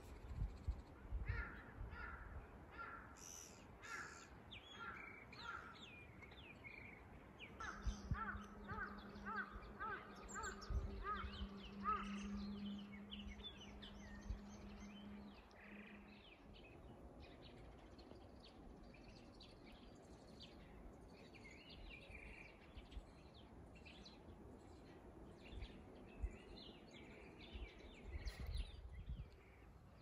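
Birds calling in spring woodland. One bird repeats a single call about twice a second in two runs during the first half, over scattered chirps from small birds. A low steady hum joins for several seconds in the middle.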